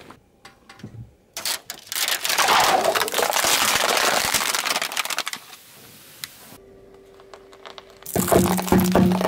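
Car tyre rolling over a clear cup full of liquid, with several seconds of dense crackling and crunching as it breaks and the liquid splashes out. Near the end comes a burst of sharp cracks as hard lollipops crunch under the tyre.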